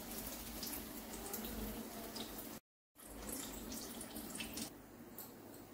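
Besan-battered bottle-gourd fritters sizzling and crackling as they deep-fry in hot oil in a kadai, with a metal slotted spoon working among them. The sizzle breaks off completely for a moment a little before the middle and is quieter near the end.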